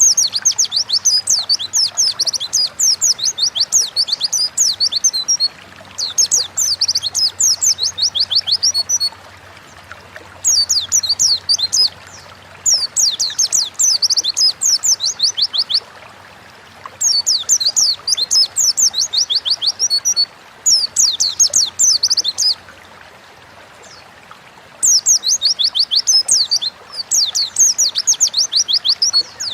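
White-eye (pleci) singing: fast, high-pitched twittering song phrases, each lasting a few seconds, separated by short pauses.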